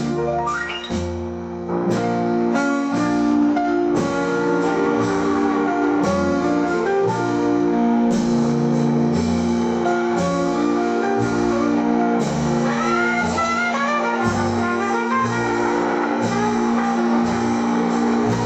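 Instrumental jazz-style music: a moving bass line and steady beat under long held melodic notes, with a quick run of higher notes about thirteen seconds in.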